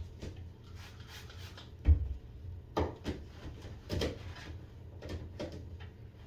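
Things being handled and set down on a bathroom vanity counter with a plastic basket: a series of knocks, clunks and rubs, the loudest a dull thud about two seconds in.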